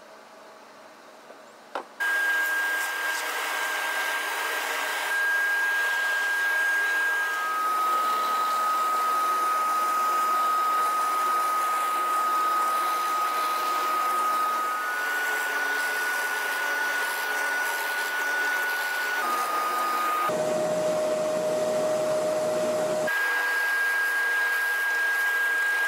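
Drill press running with its bit cutting into wood while a dust-extraction vacuum draws off the chips: a loud steady rush with a steady whine, starting about two seconds in. The whine's pitch jumps abruptly several times, dropping much lower for a couple of seconds near the two-thirds point.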